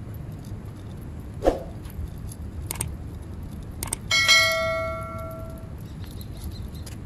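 Subscribe-button sound effect: a few sharp clicks, then a bell chime about four seconds in that rings for about a second and a half and fades away. A steady low background rumble runs underneath.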